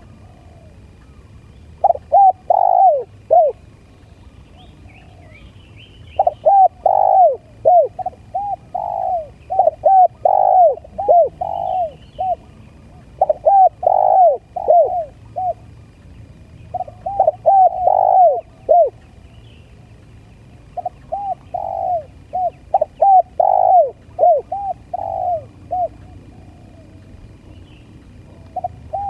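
Spotted dove cooing: bouts of several quick, rising-and-falling coos in a row, repeated every few seconds with short pauses between bouts.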